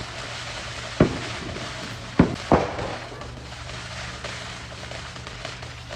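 Fireworks going off across the neighbourhood: three sharp bangs, one about a second in and two close together a little past two seconds, over a steady haze of distant crackling and popping.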